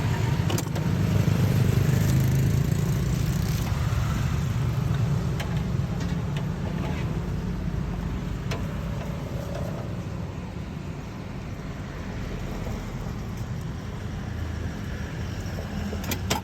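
Low, steady rumble of road traffic that slowly grows quieter, with a few faint clicks.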